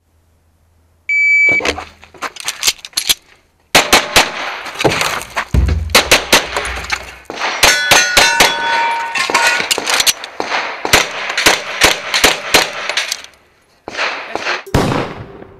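A shot timer beeps once, then a Walther Q5 Match SF 9mm pistol fires rapid strings of shots, with a short break about three seconds in and another near the end. Hits on steel targets ring out among the shots.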